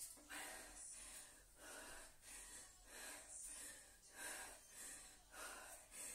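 A woman breathing hard from exertion, with faint, quick, rhythmic breaths while she lifts dumbbells.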